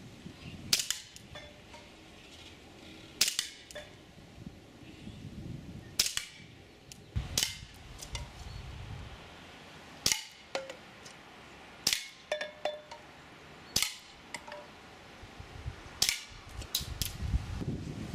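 Swiss Arms P1911 CO2 BB pistol firing single shots, each a sharp crack, about ten in all at two to three second intervals with a quicker pair near the end. Fainter clicks follow some of the shots.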